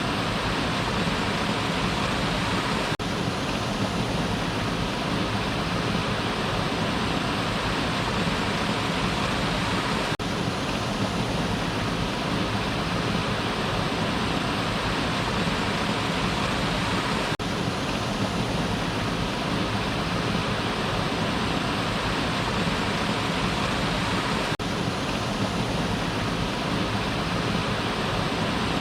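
Waterfall: water falling and rushing in a steady, even roar, with a brief dropout about every seven seconds.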